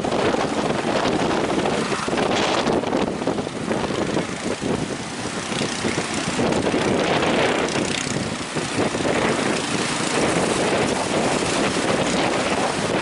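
Steady rushing noise of wind on the microphone and sea surf, with a motor droning underneath.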